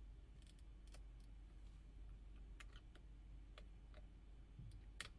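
Faint, scattered small clicks over near silence, the sharpest near the end: a metal dental tool working the QWERTY flex connector of a phone being taken apart.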